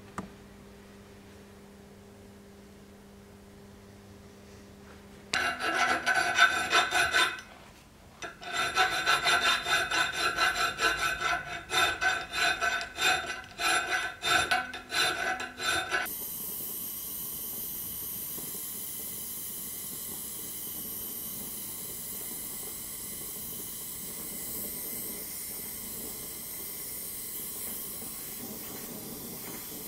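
A hacksaw cutting a steel bar clamped in a vise, with quick back-and-forth strokes about two a second and a short pause after the first couple of seconds of sawing. Then a gas torch's flame hissing steadily. A faint steady hum comes before the sawing.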